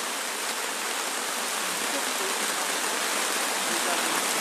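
Heavy rain pouring down in a steady downpour, growing slightly louder towards the end.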